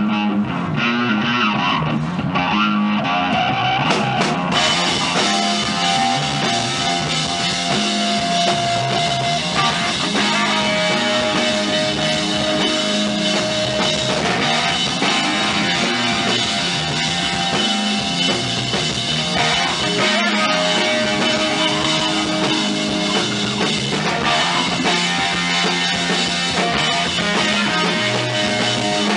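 Live rock band playing an instrumental passage: electric guitar, bass guitar and drum kit, loud and steady, with held guitar notes. The full band with cymbals comes in about four seconds in.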